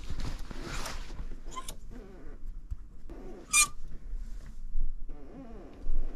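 Shirts on hangers being pushed along a clothes rack: fabric rustling, with a few sharp hanger clicks and scrapes, the brightest about halfway through.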